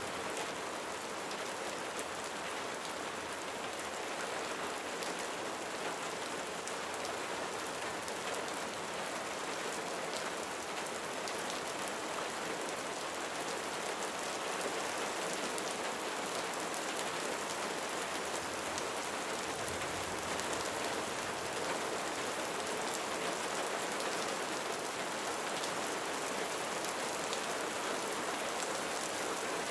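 Steady rain falling on a roof, an even hiss with the ticks of individual drops striking it.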